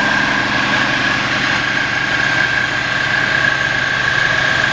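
Parked fire rescue truck's diesel engine idling steadily, a constant hiss with a steady high whine over it.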